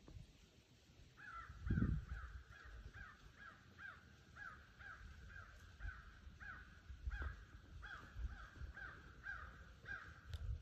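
An animal calling in a long, even series of short, slightly falling notes, about two a second, starting about a second in. A low thump on the microphone comes about two seconds in.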